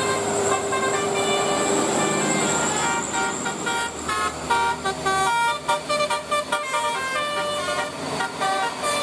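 Bus telolet horn playing a melodic run of short notes, the pitch jumping every fraction of a second; the notes turn quicker and choppier from about four seconds in.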